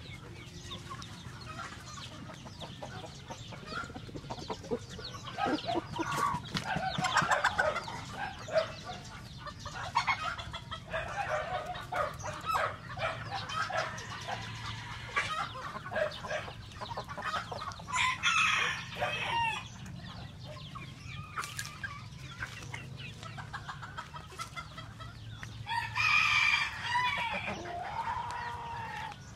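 Free-range native chickens clucking and calling, with a rooster crowing twice, once near the middle and once near the end.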